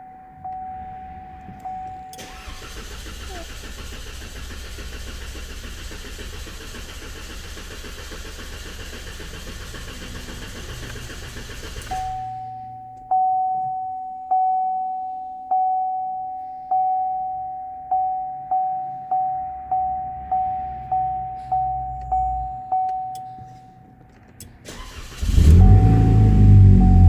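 The 2.0L turbo four-cylinder of a 2013 Cadillac ATS cranks on the starter for about ten seconds without firing during a scan-tool compression test. A dashboard warning chime then repeats, faster and faster. Near the end the engine starts and runs loudly. This engine is being diagnosed for a cylinder 4 misfire.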